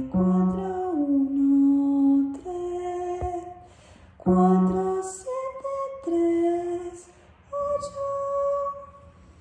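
A woman singing a tonality study in D-flat major: a slow line of single held notes with short breaks between them, ending about nine seconds in.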